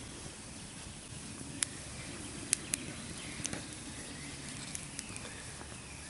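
Small twig campfire burning, with a handful of sharp, scattered crackles and pops from the burning sticks.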